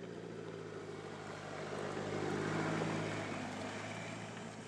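Mercedes-Benz E 220 d All Terrain's four-cylinder diesel engine running, with its tyres rolling over a stony dirt track, as the car drives past close by: the sound grows to a peak about halfway through, then fades.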